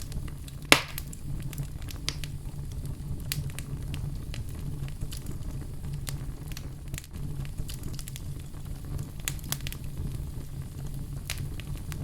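Wood fire in a fireplace crackling, with scattered sharp pops over a steady low rumble. One louder pop comes under a second in.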